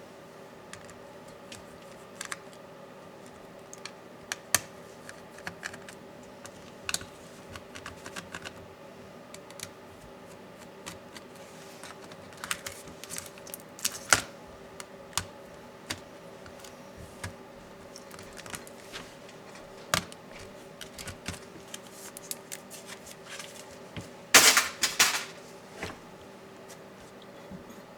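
Irregular small clicks and taps of a Dell Latitude 7410 laptop's plastic and metal parts being handled during disassembly, with a louder run of clicks about 24 seconds in. A faint steady hum runs underneath.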